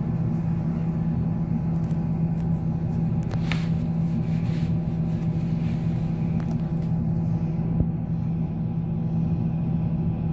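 Duewag MGT6D low-floor tram running along the track, heard from on board: a steady low hum over the continuous rumble of wheels on rails.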